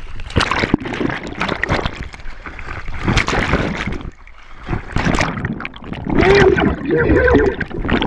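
Water splashing and sloshing around a camera dipping in and out of the surface, with repeated sharp splashes and gurgling. Near the end come a few short wavering tones.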